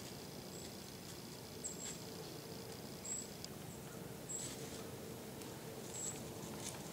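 Quiet woods: short, thin, high chirps recur about once a second. A few soft rustles of dry leaves come near the middle and near the end, where a whitetail doe is feeding in the leaf litter.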